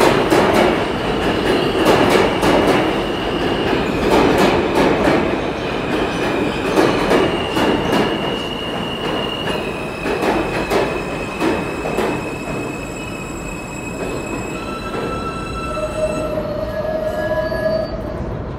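New York City subway R train pulling into the station and slowing to a stop: wheels knocking over rail joints, with a steady high squeal as it brakes. Near the end the knocking dies away and the squeal drops to lower tones as the train halts.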